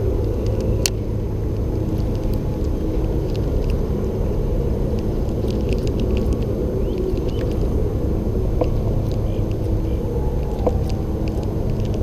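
Steady low rumble throughout, with a few faint scattered ticks above it.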